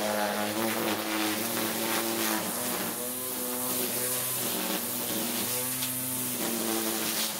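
Greenworks 40V cordless electric string trimmer running and cutting tall grass: a steady motor whine over the hiss of the spinning line, its pitch wavering slightly.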